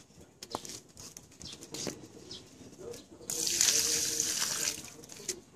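A stream of water poured from above splashes into a shallow muddy puddle. The splashing starts suddenly about three seconds in, runs loud for about a second and a half, then fades out.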